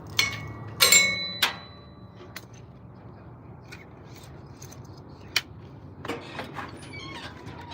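A few sharp metallic clinks and knocks, the loudest about a second in with a short bright ringing, then scattered softer ticks and one more knock about five seconds in.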